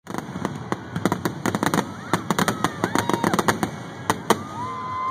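Fireworks finale: aerial shells bursting in a rapid barrage of sharp bangs and crackles, several a second, stopping after about four seconds.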